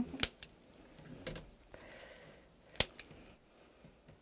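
A few sharp, isolated clicks, the loudest about a quarter-second in and again near three seconds in, with quieter ones in between.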